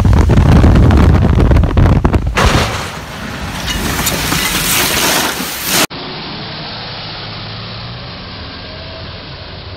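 Loud crashing and rumbling with many knocks for about two seconds, from a raised dump-trailer box hitting an overpass. Then comes a steady rushing hiss of dust and falling debris, which cuts off suddenly about six seconds in. After that, quieter steady street noise with a truck engine's low hum.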